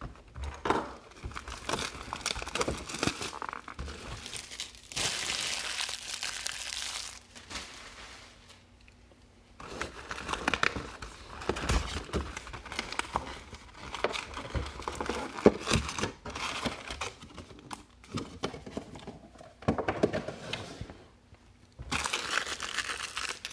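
Plastic wrapping and cardboard of a Topps baseball-card jumbo box being torn and crinkled as the box is opened, with one long loud rip about five seconds in. Near the end the stack of foil card packs rustles as it is lifted out.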